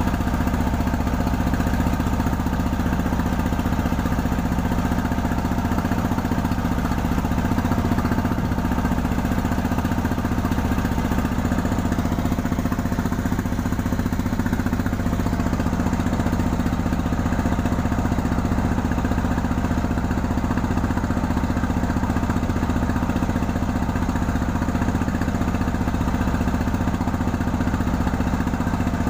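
Tianli 1130 single-cylinder diesel engine of a wooden river longboat, running steadily under way at an even speed. Water rushes along the hull.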